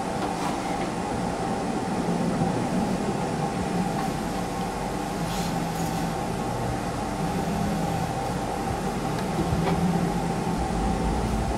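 Smartphone vibrating on a desk for an incoming call: repeated low buzzes, each about a second long, over a steady hum.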